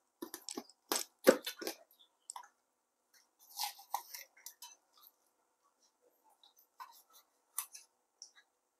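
Large kitchen knife cutting up a raw whole chicken on a wooden chopping board: irregular knocks and cuts, the heaviest a little over a second in, then lighter scattered ones.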